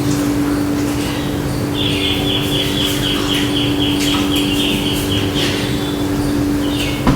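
A steady low hum, with a high chirping trill of about three notes a second running for several seconds in the middle.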